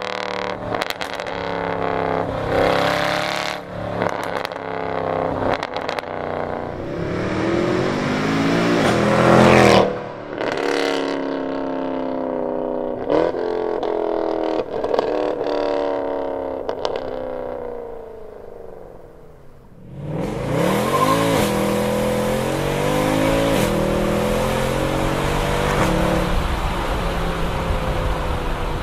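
Mercedes-Benz C63 AMG's naturally aspirated 6.2-litre M156 V8, with secondary cats and resonators deleted, revving hard through the gears with sharp cracks between shifts, then its note falling away as the car slows. About two-thirds in it cuts to the same engine heard from inside the cabin, accelerating again.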